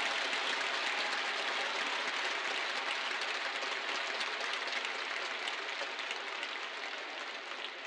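Tennis crowd applauding after a point won, a dense patter of clapping that slowly dies away.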